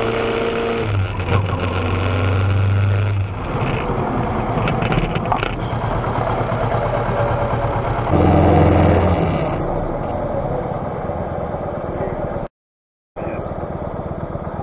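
A vehicle's engine running steadily under road and wind noise. The engine swells louder about eight seconds in, and the sound cuts out completely for a moment near the end.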